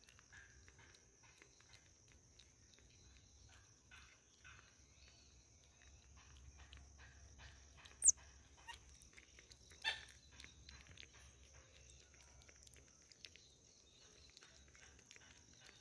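Faint, steady high insect buzz with soft clicking, broken about eight seconds in by a short, sharp, rising chirp from a marmoset and, two seconds later, a second high call.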